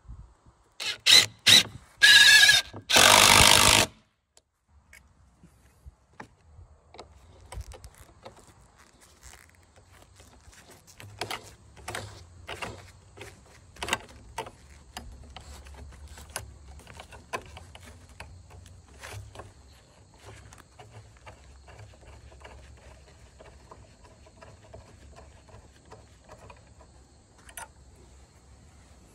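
Power drill running in four short bursts over the first few seconds, pre-drilling a pilot hole in wooden trim for a downspout bracket. After that come many lighter clicks and knocks as the metal bracket is handled and fitted.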